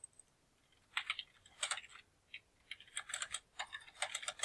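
Typing on a computer keyboard: quick runs of keystrokes, starting about a second in and going on in short bursts.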